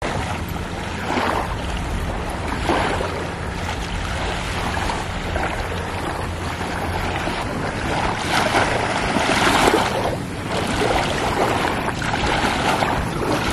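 Small waves lapping on a sandy shore of a calm sea, swelling and easing irregularly, with wind gusting on the microphone.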